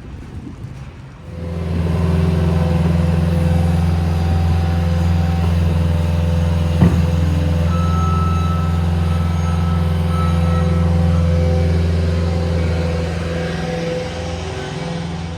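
A large motor vehicle's engine running steadily close by, with a low, even hum. It starts abruptly about a second in and eases off near the end. A single sharp click comes about halfway through.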